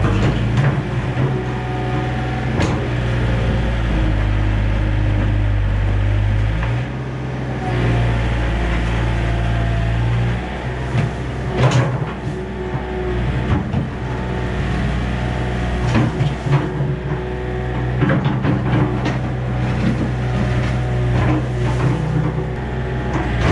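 Yanmar B37 mini excavator's diesel engine running under hydraulic load, its note dropping and picking up several times as the boom and bucket are worked. Clunks and scrapes of the steel bucket digging into dirt and stones come through, the sharpest about halfway in and a run of them near the end.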